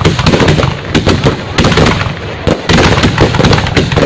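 Fireworks going off in a rapid, dense string of loud cracks and bangs, with two short lulls.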